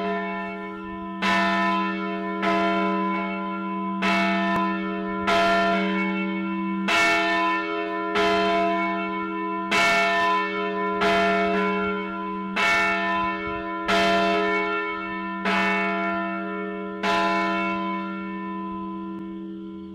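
Church bell ringing, struck about every second and a half, with each strike ringing on under the next; the strikes stop near the end and the last one rings out.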